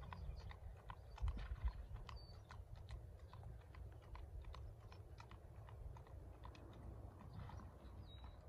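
Faint, quick, irregular clicks of a ridden horse's hooves on a paved lane, over a low steady rumble.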